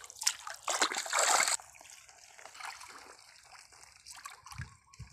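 Shallow seawater splashing and sloshing inside a wire-mesh fish corral, stirred by someone moving through it. A louder stretch of splashing in the first second and a half stops suddenly, leaving faint trickling and small splashes.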